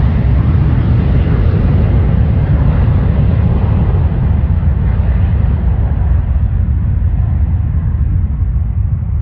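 Airplane engine noise receding, its higher part fading away over several seconds, over a heavy low rumble.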